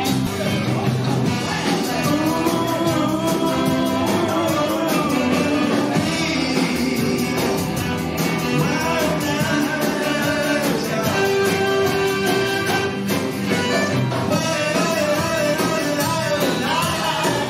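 Live band playing through the house PA: electric guitar, bass guitar and drum kit with a lead vocal.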